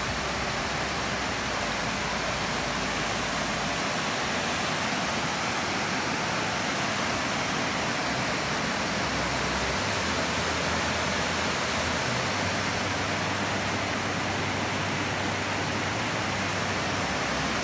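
Loud, steady rush of North Sylamore Creek pouring over a low stone dam.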